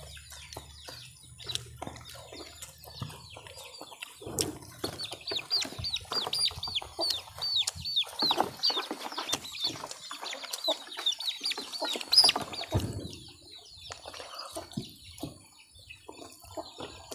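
Chickens clucking and calling, with a fast run of short, high, downward-slurred calls through the middle, over scattered small clicks.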